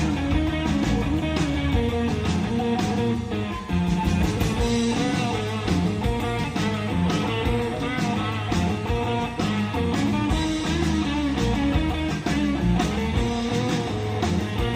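Live rock band playing a surf-style instrumental: electric guitar lead over bass guitar and drums keeping a steady beat.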